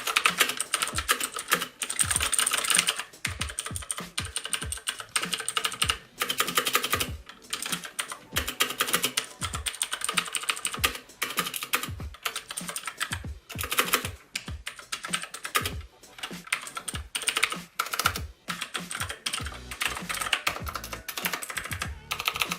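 Fast typing on a Tt eSports Poseidon Z mechanical keyboard with Kailh blue switches: a dense, irregular run of sharp key clicks with a few brief pauses. These are clicky switches that sound much like Cherry MX Blues.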